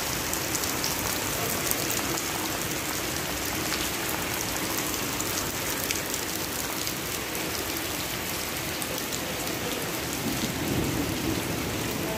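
Steady rain falling on wet ground and puddles, many small drop ticks over an even hiss.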